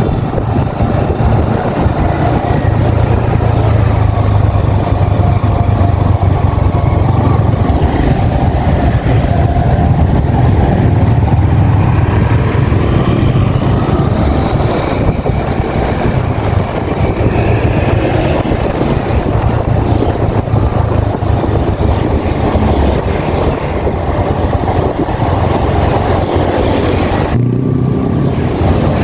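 Yamaha XSR 155's single-cylinder engine running while the motorcycle is ridden, its pitch drifting gently up and down with the throttle, over a heavy low rumble of wind and road noise. Near the end the higher part of the sound briefly drops away.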